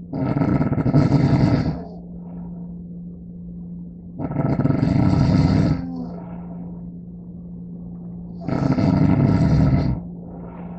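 Loud snoring: three long snores, each about a second and a half, coming about every four seconds. A steady low hum sounds between them.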